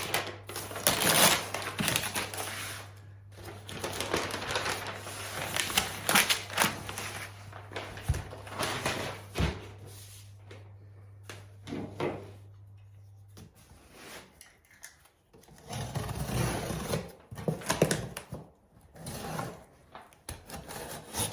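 Sparkly gift-wrapping paper being crinkled and torn off a box, in irregular rustling, crackling bursts with small clicks.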